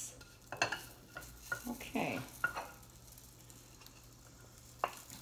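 Wooden spatula stirring and scraping diced potatoes and onion frying in a skillet for corned beef hash, with a light sizzle and a few sharp taps of the spatula against the pan.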